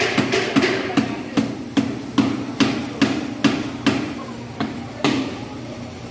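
Hammer blows at a construction site in a steady rhythm, about two to three strikes a second, slowing and stopping about five seconds in.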